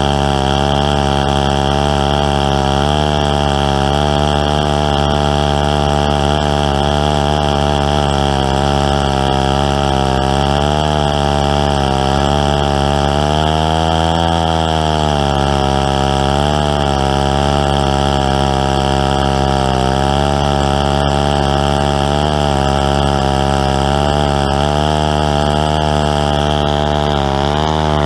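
Stihl 090, a large two-stroke chainsaw, running under load as it rips lengthwise through a log in a chainsaw mill. The engine note is steady with a slight wavering pitch, and near the end the pitch sags and then climbs back.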